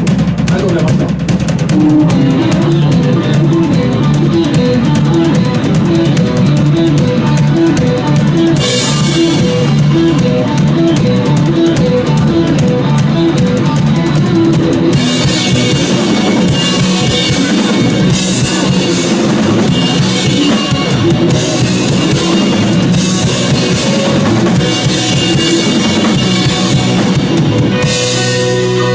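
Instrumental rock passage with no vocals: a drum kit with bass drum and cymbals plays over a repeating bass line and electric guitar. The cymbals get fuller about nine seconds in and again about fifteen seconds in. Near the end the beat gives way to held guitar and bass chords.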